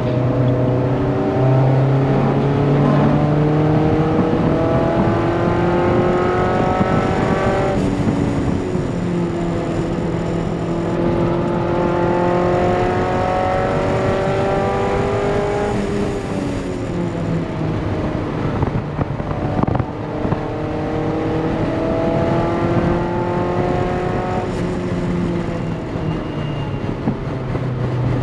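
Mazda MX-5 NC's 2.5-litre engine heard from inside the cabin, pulling hard at full throttle on track: the revs climb steadily three times, falling back sharply about 8 and 16 seconds in, with a rougher stretch of falling revs after the second drop, over steady road and wind noise.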